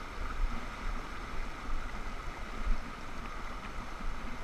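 Fast river rapids rushing and churning over rocks, heard up close from mid-stream, with irregular low thumps underneath.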